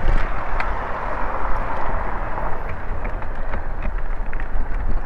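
Riding noise from a bicycle-mounted action camera: a steady low rumble of wind and tyres on the microphone, with scattered light rattling clicks.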